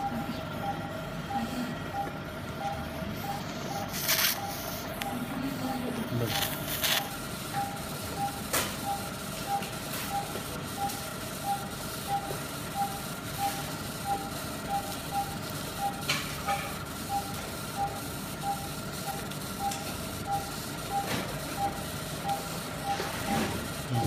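Operating-theatre patient monitor beeping with each heartbeat, short beeps at one steady pitch, a little under two a second, over a steady equipment hum. A few sharp clicks and knocks from handled instruments come through, the loudest about four and seven seconds in.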